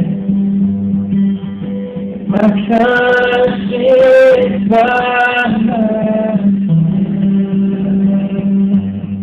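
Acoustic guitar music over a steady low drone note. About two and a half seconds in, a melody of long held notes comes in and lasts for around four seconds, with no words sung.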